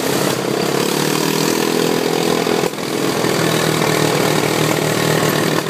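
ATV engine running at a fairly steady pitch, with a brief dip about two and a half seconds in.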